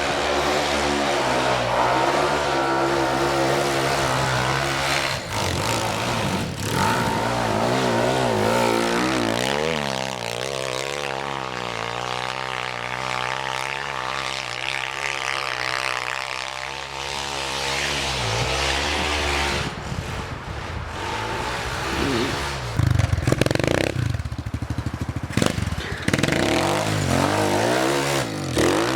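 Small four-stroke pit bike engine revving up and down as the bike rides through deep snow, the pitch wavering quickly with the throttle. Clattering knocks come in near the end.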